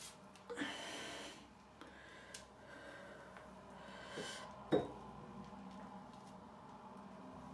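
A short, noisy breath about half a second in, then a few faint clicks and one sharper tap near the middle, over a low steady hum.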